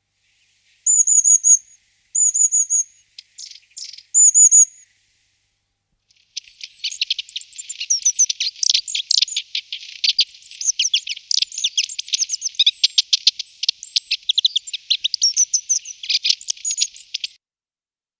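Small songbird calling and singing: three short, high-pitched trilled calls in the first few seconds, then a long, rapid twittering song of varied high notes lasting about eleven seconds.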